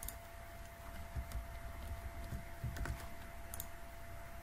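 A few scattered computer mouse and keyboard clicks over a steady faint hum.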